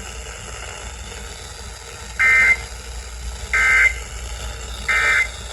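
Emergency Alert System end-of-message signal: three short bursts of SAME digital data, each a harsh two-tone data screech lasting about a third of a second, about a second and a half apart, starting about two seconds in. They mark the end of the alert broadcast.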